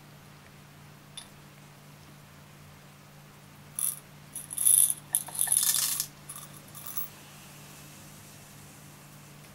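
Small hard pieces dropped into a glass tank of water, a rapid cluster of clinks and splashes lasting about three seconds from roughly four seconds in. A steady low hum lies underneath.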